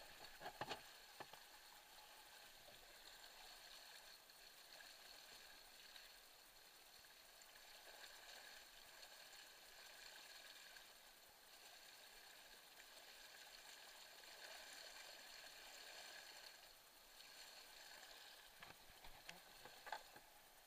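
Faint, steady rush of a high-running creek, with a few light knocks near the start and near the end.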